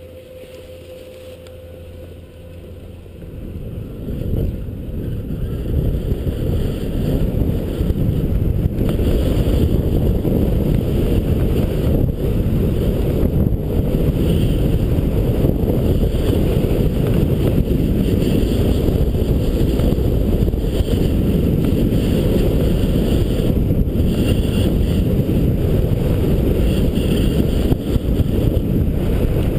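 Wind buffeting the microphone of a skier's point-of-view camera, mixed with skis sliding on groomed snow: a low rush that builds over the first few seconds as the skier picks up speed, then holds steady.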